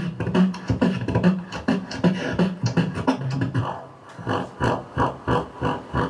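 Solo beatboxing into a cupped handheld microphone: a rapid run of percussive mouth sounds over a low hummed tone, settling into a steadier beat of about three strokes a second near the end and stopping sharply.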